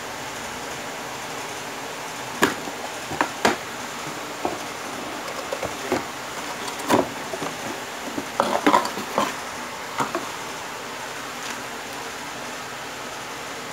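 Cardboard box being handled and opened by hand: a series of scattered knocks, taps and rustles of cardboard, paper and a plastic bag, with a cluster of them near the end, over a steady hiss.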